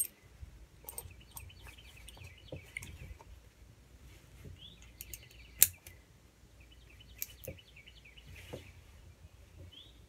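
Metal quick-release buckle on a tree saddle's leg strap being handled, with a few light clicks and one sharp click a little past halfway as it snaps together. Birds chirp faintly in the background.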